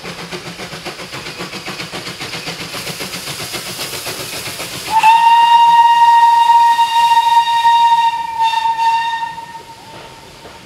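Steam locomotive chuffing steadily as it nears, then about five seconds in a long blast on its steam whistle: one steady pitch held for about four seconds, much louder than the exhaust. The whistle stops near the end as the train runs on beneath.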